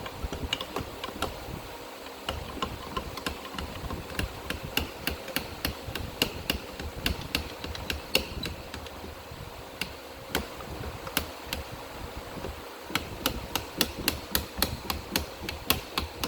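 A hand-operated bead-forming tool being worked on a metal coolant tube: a steady run of sharp metallic clicks and knocks, two or three a second, with the workbench rattling under the effort.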